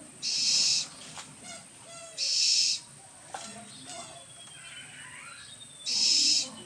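An owl giving three harsh, hissing screeches, each under a second long and a couple of seconds or more apart.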